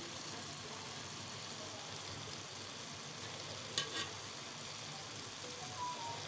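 Steady sizzling hiss of a pot of rice pulao cooking uncovered on the stove as its remaining water boils off. Two sharp clicks come close together about four seconds in.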